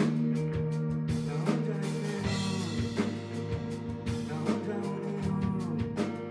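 Live rock band playing, a drum kit keeping a steady beat under sustained pitched instruments with some sliding notes.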